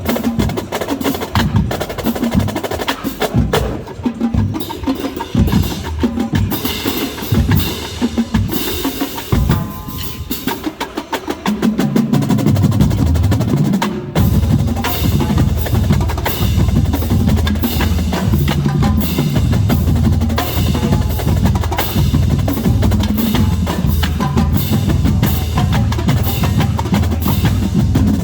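College marching drumline of snare, tenor and bass drums playing a cadence with sharp, crisp strokes. About twelve seconds in, the playing becomes denser and heavier in the low drums and stays that way.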